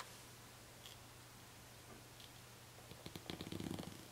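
Quiet room with a faint steady hum, then about three seconds in a short flurry of soft paper rustling and small clicks as a hand handles a sticker and presses it onto a planner page.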